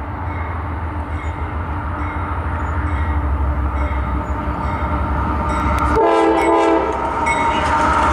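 Diesel freight locomotives, led by a GE CW44AC, approach with a steady low engine rumble that grows louder as they near. About six seconds in, the lead unit's air horn sounds one chord of several notes for about a second.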